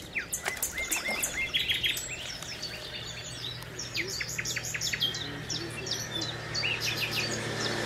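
Small songbirds chirping and singing: many quick, short calls, thickest in the first couple of seconds, then sparser.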